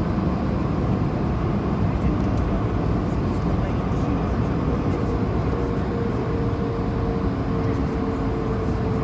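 Cabin noise of an Airbus A220-300 taxiing onto the runway: a steady rumble and hum from its Pratt & Whitney PW1500G geared turbofans at low power, heard through the fuselage beside the wing. A steady higher whine comes in about halfway.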